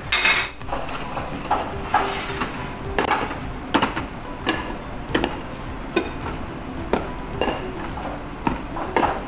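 Plates and plate covers clinking and knocking as they are set down and stacked, a sharp knock every second or so, over background music.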